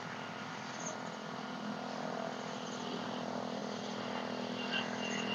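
A motor vehicle's engine running with a steady hum that grows slowly louder, with faint high chirping over it.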